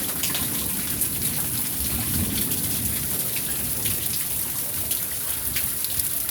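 Heavy rain falling steadily, with many sharp drops striking a hard surface, and a low rumble of thunder underneath about two seconds in.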